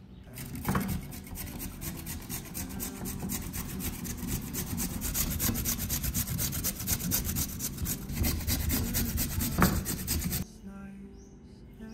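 A raw carrot being grated on a flat metal hand grater: a long run of rapid rasping strokes that stops abruptly near the end.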